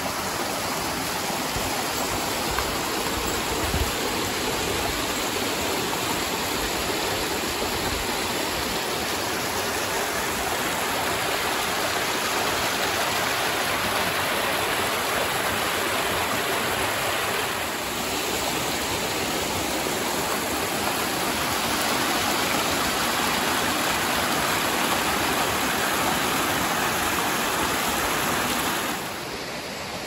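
Steady rush of a mountain stream's flowing water, dropping a little in level near the end.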